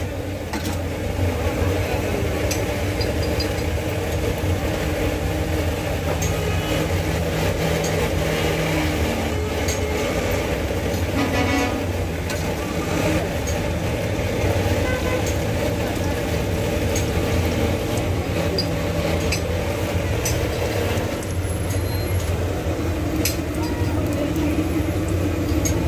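Steady street traffic with engines running and a horn tooting briefly about eleven seconds in, under background voices, with occasional light metallic clinks of tongs at the wok.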